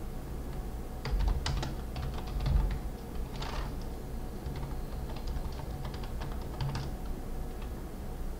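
Typing on a computer keyboard: irregular keystrokes in short runs with pauses between them.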